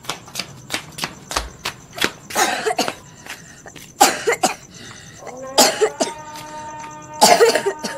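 A young boy coughing in four harsh bouts, spaced every second and a half or so: a persistent cough that he has had for a long time.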